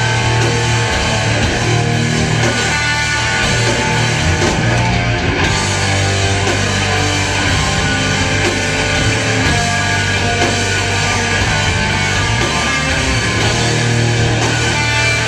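Heavy metal band playing live: loud, dense electric guitars over sustained low bass notes.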